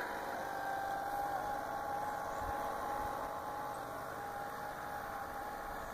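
Electric motor of a radio-controlled fishing boat running at speed as the boat moves away: a steady whine that grows slightly fainter toward the end.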